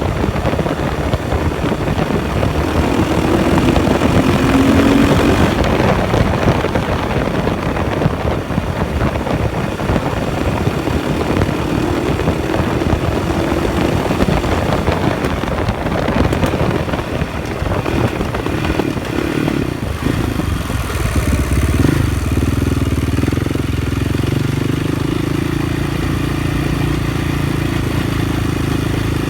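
KTM 560 SMR single-cylinder engine pulling under acceleration with wind on the microphone, its revs rising a few times. About twenty seconds in it settles to a steady idle. The owner describes a juddery noise under acceleration, with the bike no longer pulling smoothly and hard.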